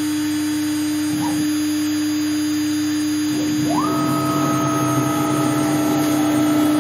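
AMAX 3636 CNC router with its spindle running at a steady hum. From about three and a half seconds in, the stepper motors add a whine as the head starts traversing across the work: it rises in pitch, holds steady, then falls as the move slows near the end.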